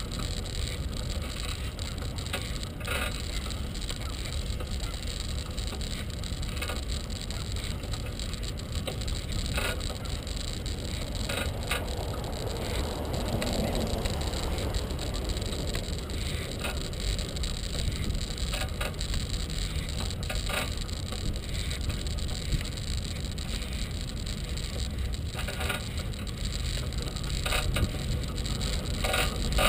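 Bicycle rolling along a paved path: steady low rumble of tyres and wind on a bike-mounted microphone, with scattered short clicks and rattles from the bike and its rear basket over bumps.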